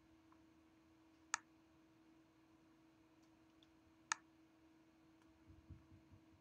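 Two sharp computer mouse clicks, about a second and a half in and again about four seconds in, over a faint steady hum; a few soft low thumps come near the end.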